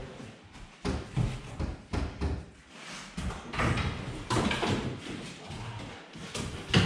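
A dog's paws and body bumping and scrabbling on wooden cabinets and shelves as it climbs up into them. The result is a series of irregular knocks and thumps, with one sharper bang near the end.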